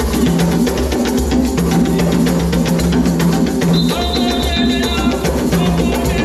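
Hand drums playing a fast, driving dance rhythm, over a repeating low tone. High held tones join about four seconds in.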